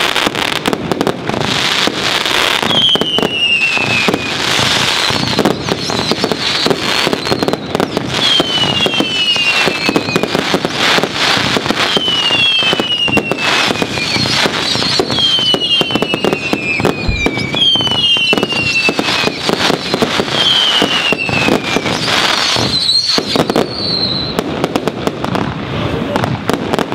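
Fireworks display finale: a dense, unbroken barrage of bangs and crackling, with pairs of falling whistles every few seconds.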